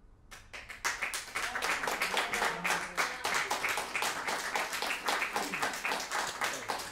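Applause from a small audience, starting almost at once and thickening within about a second into steady clapping.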